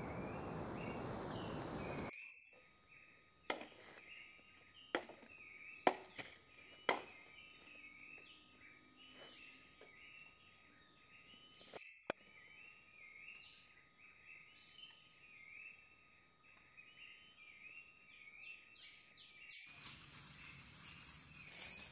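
Insects chirping in a fast, repeating series, with four sharp clicks about a second apart during the first part. Before it, a louder steady hiss for about two seconds that cuts off abruptly.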